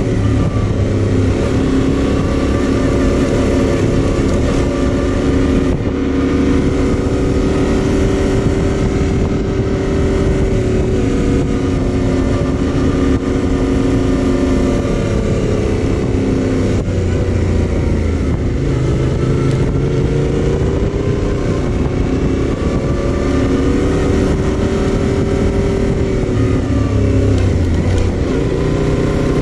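Yamaha Ténéré 700's 689 cc parallel-twin engine running under way. Its pitch holds steady for long stretches, then drops and climbs again twice, around the middle and near the end.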